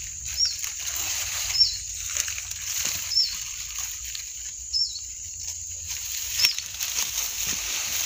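A bird repeats a short, high, hooked call roughly every second or two over a steady high insect hiss. Sudden rustles and knocks in dry leaves and fronds are the loudest sounds, about one and a half seconds in and again after six seconds.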